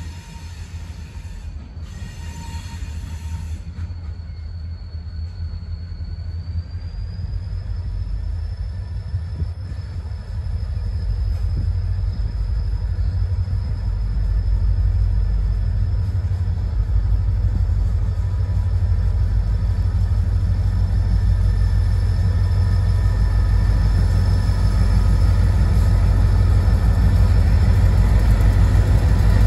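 Two diesel locomotives running light on an approaching train, their low engine rumble building steadily louder as they near, with a faint thin high whine held above it.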